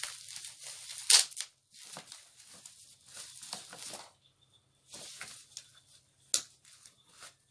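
Plastic bubble-wrap packaging crinkling and rustling in irregular bursts as it is pulled open and cut with scissors, with two sharper crackles, one about a second in and one near the end.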